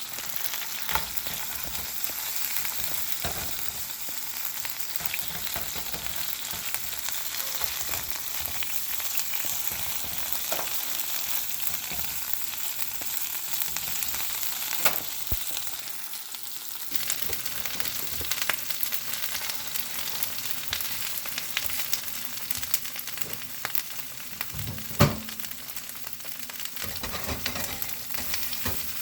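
Chorizo and eggs sizzling steadily as they fry in a pan. Short clicks and knocks of a utensil stirring come now and then, with one sharper knock about 25 seconds in.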